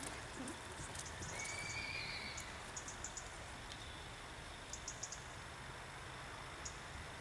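Open-air ambience with a steady low rumble of wind on the microphone. About a second in, a single drawn-out high call lasts about a second, and a few faint high ticks follow later.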